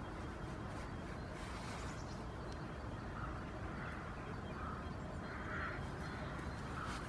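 Crow cawing repeatedly: a string of short, harsh calls, one every second or less, starting about three seconds in, over steady low background noise.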